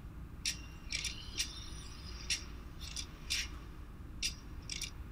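Sharp metallic clicks and clinks, about ten at uneven intervals, with a brief high ring after a cluster near the first second. These are mechanical lock-and-pick sound effects.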